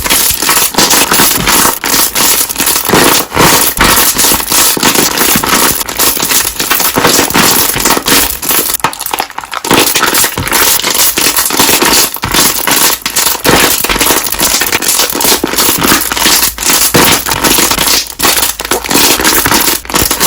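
Slime being pressed and squeezed so that its trapped air bubbles pop in a loud, dense crackle of rapid clicks, with a short let-up about halfway through.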